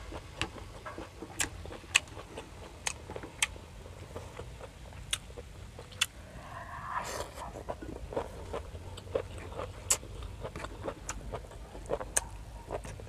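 Close-miked chewing of grilled squid and fresh seaweed: irregular sharp, crisp crunches and wet mouth clicks, with a short rustling smear about seven seconds in.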